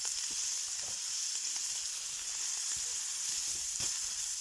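Sausages sizzling in a skillet: a steady frying hiss with a few faint pops.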